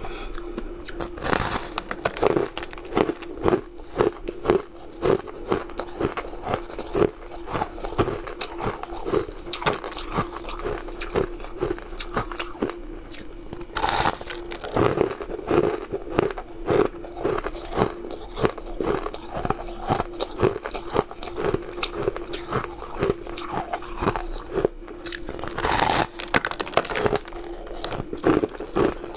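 Crunching of soft, fluffy ice as it is squeezed by hand and bitten and chewed, many small crunches in quick succession. There is a louder bite about halfway through and another near the end.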